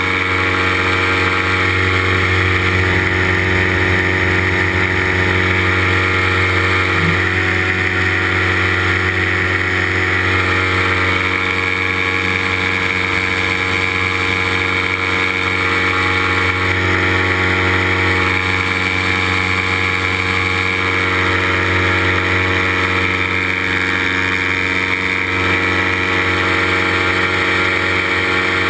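Paramotor engine and propeller running steadily at an even cruise throttle in flight, heard close up from a camera on the pilot's harness.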